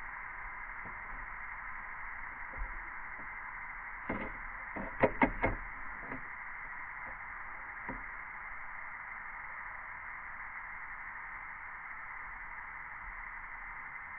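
A few sharp clicks and taps from hand work on parts, with a quick run of three loud ones about five seconds in and a couple of lighter ticks later, over a steady hiss.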